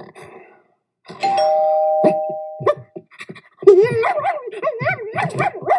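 Two-note doorbell chime, a ding followed by a lower dong, about a second in. A dog then barks with rising and falling cries from about three and a half seconds in.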